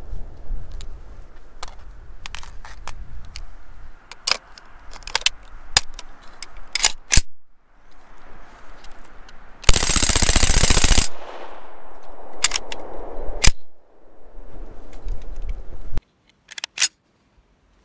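Boots crunching through deep snow, then, about ten seconds in, a single short burst of full-auto fire from a Reising submachine gun lasting about a second and a half, its echo trailing off for a couple of seconds afterwards.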